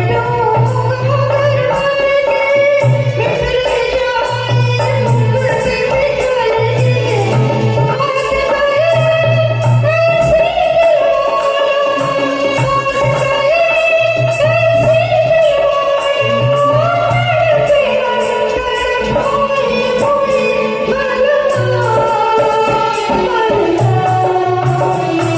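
A woman singing a Bollywood-style Hindi song over a backing track, her held notes wavering over a repeating low bass-and-drum pattern.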